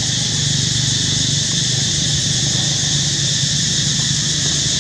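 Steady outdoor background: a high, even insect drone over a steady low hum, with no clear animal calls.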